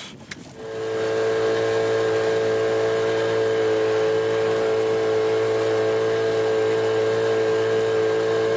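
Dinghy outboard motor running steadily at one speed under way, with a steady whine over the engine note; it comes up to full level about half a second in.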